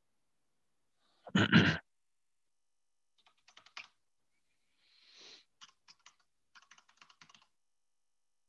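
Typing on a computer keyboard in short bursts of keystrokes, after one short loud noise about a second and a half in.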